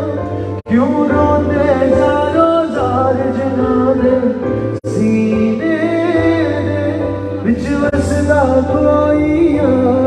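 A man singing a Punjabi pop song into a microphone over a live band, with bass guitar and drums under the vocal. The sound cuts out for an instant twice, about half a second in and near the middle.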